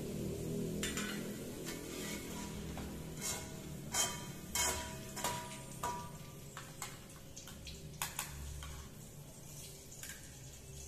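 Metal and wooden-handled spatulas scraping and knocking against a wok as fried pieces are turned and lifted out, with several short ringing metal clanks about four to six seconds in and again near eight seconds.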